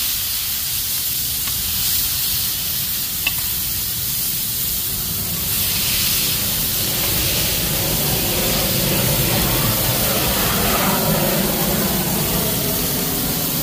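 Burger patties and chopped onions sizzling on a hot flat-top griddle, a steady hiss, while a patty is pressed flat with a can. The sizzle grows louder and fuller from about six seconds in as the meat is smashed down onto the onions, with a short click about three seconds in.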